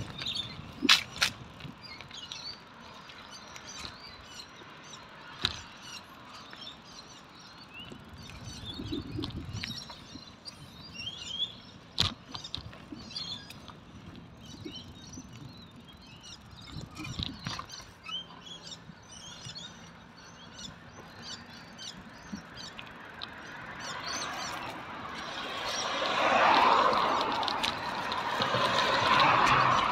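Birds chirping with many short calls throughout, with a few sharp clicks. A car passes on the road, its tyre and engine noise rising from about two-thirds of the way in and loudest near the end.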